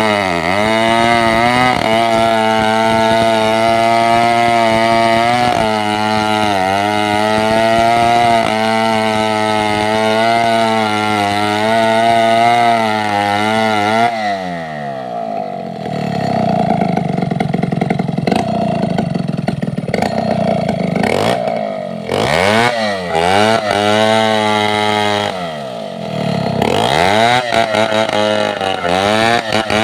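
Gasoline chainsaw engine running at high revs with brief dips in speed. About halfway through the revs fall sharply, and the engine then drops and picks back up several times.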